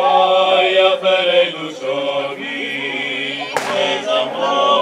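Male vocal quartet singing a Ukrainian folk song a cappella in close harmony, the voices holding long chords. A brief click sounds about three and a half seconds in.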